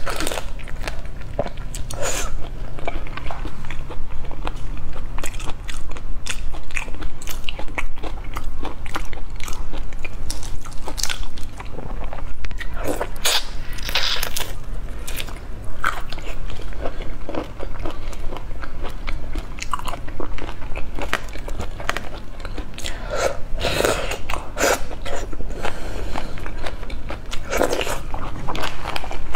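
Close-miked eating of raw shrimp: continuous biting and chewing made of many small, irregular clicks, with a few louder bites.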